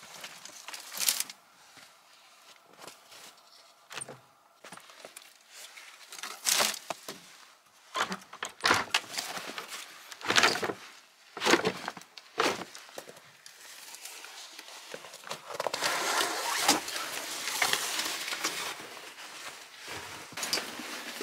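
Scattered knocks, scrapes and rustles as an old wooden plank door of a log cabin is handled and pulled open, with footsteps in snow and on wooden boards. A longer stretch of denser scuffing comes near the end.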